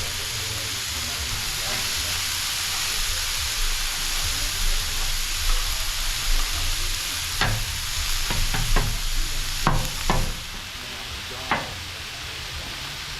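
Food sizzling on a Blackstone flat-top griddle, with a spatula clicking and scraping against the steel several times in the second half as the rice is worked.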